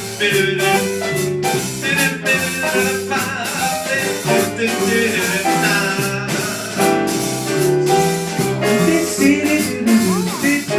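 Small jazz band playing live: an instrumental passage with a melodic lead line over bass and a drum kit keeping time.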